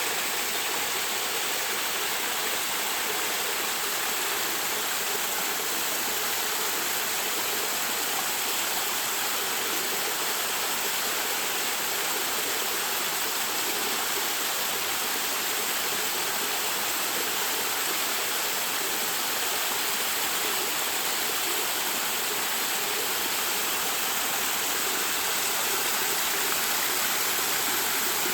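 Waterfall pouring steadily, a continuous even rush of falling water.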